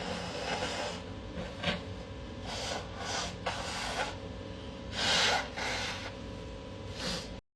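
A person sniffling and breathing noisily through the nose in a handful of short bursts during an allergic sneezing fit, the loudest about five seconds in. The sound cuts off suddenly near the end.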